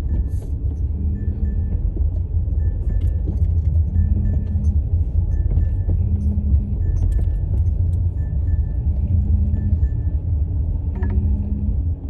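Low, steady rumble inside a moving car's cabin, with light clicks and rattles. A faint two-note tone repeats about every second and a half.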